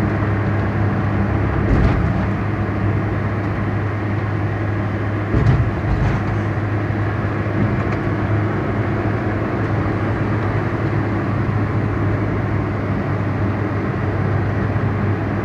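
A car being driven: steady engine and road noise with a low hum, and two brief low thumps, about two and five and a half seconds in.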